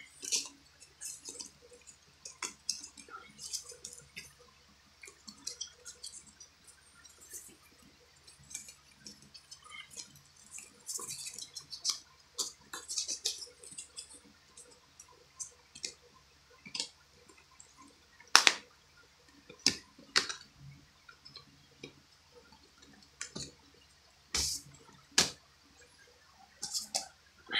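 Plastic Blu-ray cases being handled: small clicks and rustling of paper inserts, with a few louder sharp snaps of a case shutting or clicking into place, one midway and two close together near the end.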